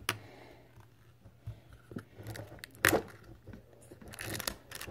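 Plastic toy packaging being handled and opened: scattered small clicks and crinkles, with a sharper click at the start and another about three seconds in.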